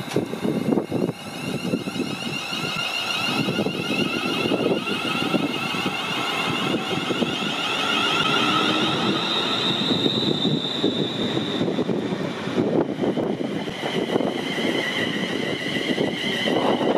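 ScotRail Class 380 Desiro electric multiple unit pulling away from the platform and gathering speed. Its traction motors give a whine of several tones that shifts about two-thirds of the way through, with wind buffeting the microphone throughout.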